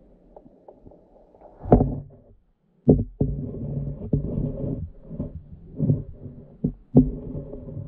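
Muffled underwater sound picked up by a GoPro in its waterproof housing: a low rumble of water with irregular dull knocks and thumps. The sound cuts out briefly about two and a half seconds in, then the rumbling and knocking return.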